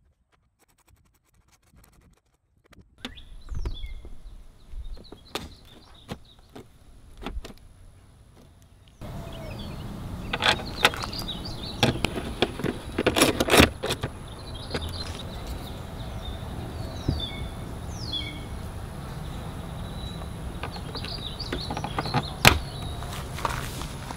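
Hand-tool work on a scooter's plastic front panel: scattered clicks and knocks, then a 1/4-inch ratchet with a Torx bit clicking in quick bursts about halfway through as it drives a screw into the front grille. A steady outdoor background noise comes in about nine seconds in.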